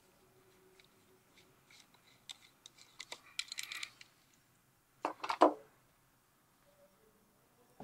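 Light metallic clicks and clinks of a nut driver and small metal parts as a 6 mm nut is taken off the inside of a Bolex 16 mm camera's lens turret, with a louder clatter about five seconds in.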